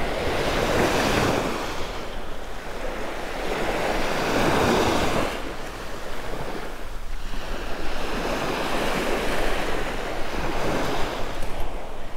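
Small surf waves breaking and washing up the beach, the rush swelling and falling away every few seconds, with wind buffeting the microphone.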